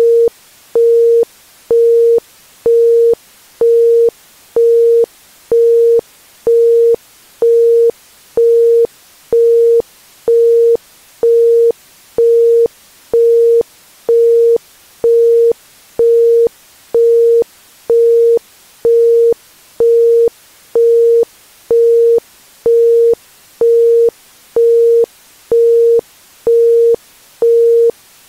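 Isochronic tone: a 465 Hz pure tone switching sharply on and off about once a second (1.05 Hz pulses), over a faint steady hiss between the pulses.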